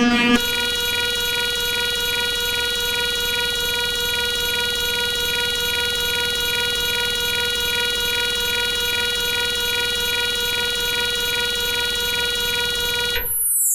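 Black MIDI playback on a synthesizer: a harsh, steady chord of many stacked tones held like an alarm, with a fine fast pulse. Near the end it breaks off into a dense cascade of notes sweeping down from high to low.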